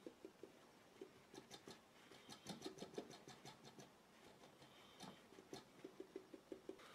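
Faint, quick scratchy strokes of a tool rubbing on wet watercolour paper, lifting paint out to make pale tree trunks. The strokes come in short flurries with pauses between them.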